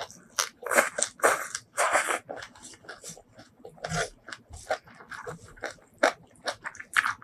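Close-up chewing and crunching of a spicy Thai rice-noodle salad with raw long beans, in irregular crunchy bites that are densest in the first two seconds.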